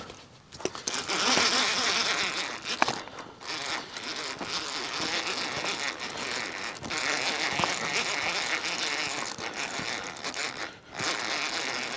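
Fishing reel being cranked steadily, winding in line against a hooked catfish, with a few short pauses in the winding.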